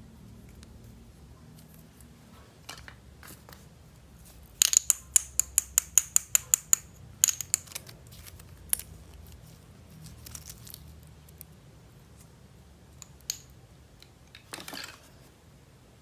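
Small hard items being handled: a quick run of about a dozen sharp clicks, about five a second, then a few scattered clicks and a short rustle near the end.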